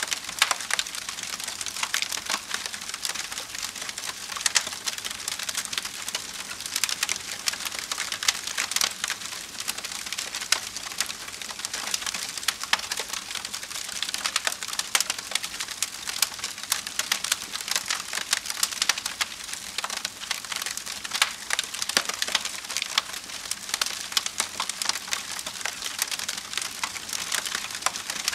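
Wood fire burning with dense, irregular crackling and sharp pops over a steady hiss.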